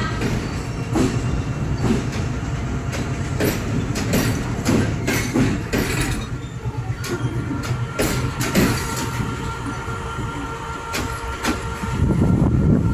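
Passenger coaches of a departing diesel-hauled train rolling past at low speed, wheels clicking over the rail joints with a steady low rumble. A thin steady whine joins about halfway through, and the rumble grows louder near the end as the last coach goes by.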